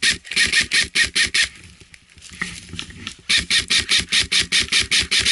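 Airsoft rifle firing two rapid runs of evenly spaced shots. The first stops about a second and a half in, and the second starts about two seconds later.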